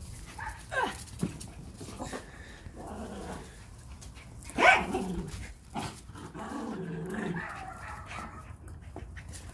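Schipperkes barking and growling in play as they tug at a toy: a short call falling in pitch under a second in, one loud bark about halfway through, then a longer growl.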